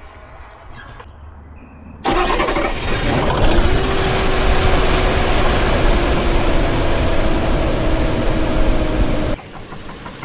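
Car engine started up after an intake manifold gasket replacement, running loud with a steady whine that sinks slightly in pitch, for about seven seconds from about two seconds in, then stopping abruptly.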